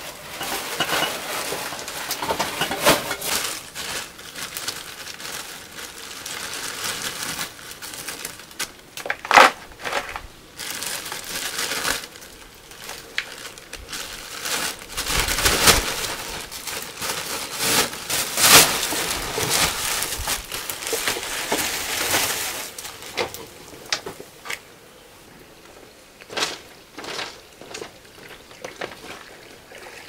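Thin plastic bags rustling and crinkling as they are handled and opened, in irregular bursts with sharper crackles now and then, thinning to a few short rustles near the end.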